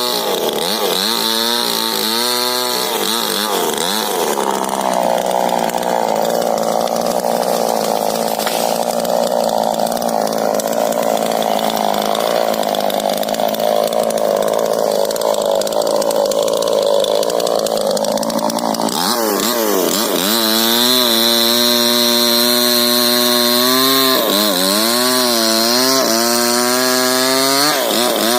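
Two-stroke chainsaw at high revs, its pitch wavering, then loaded in a long cut through rubber-tree wood for about fifteen seconds, before running free and revving up and down again.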